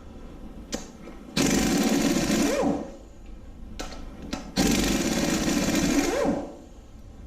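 An impact gun hammering bolts loose on an LS engine in two bursts of about a second and a half each, the second about three seconds after the first, with a few short trigger blips between them.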